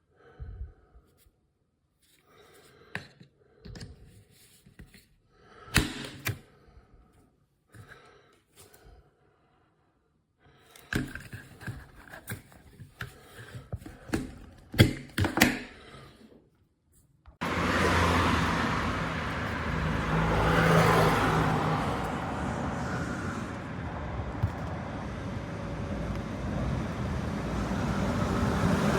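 A series of separate small clicks and knocks, like an object being handled. About two-thirds of the way in, this cuts abruptly to a steady, loud noise of a vehicle on the move, with a low engine hum under a rush of wind and road noise.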